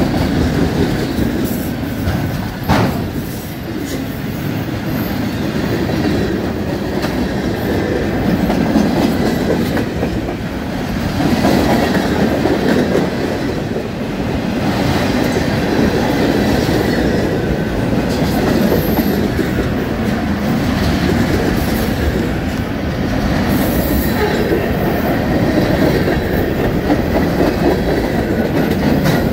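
Canadian National freight train's cars rolling past close by: a steady rumble of steel wheels on rail with clickety-clack over the joints, and a sharp knock about three seconds in.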